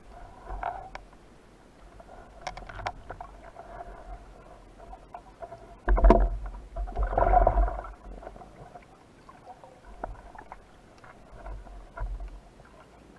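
Underwater handling and swimming noise picked up by a speargun-mounted camera: scattered clicks and knocks with a low rumble of moving water, and a loud sudden burst of water noise about six seconds in followed by a second surge.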